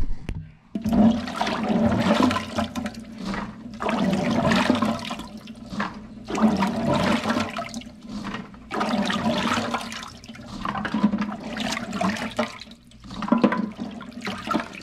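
Hands swishing and scooping crabapples in a stainless steel sink full of water: splashing and sloshing in about six surges, each a second or two long, with short lulls between them.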